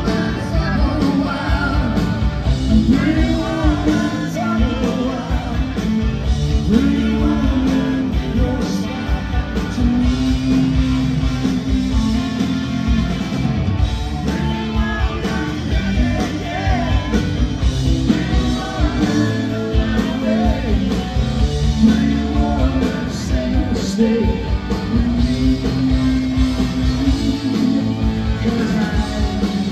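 Live rock band playing loud through a PA: distorted electric guitars, bass and drum kit, with a lead singer singing over them.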